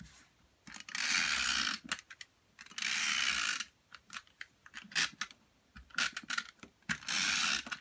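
Tape runner laying adhesive on paper in three strokes of about a second each, with a few light taps and paper clicks between them.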